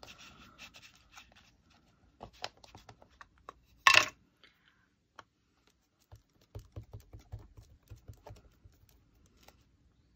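Craft stamps and paper being handled on a desk: scattered light clicks, taps and scratching, with one brief louder rustle about four seconds in and a quick run of small taps near the end.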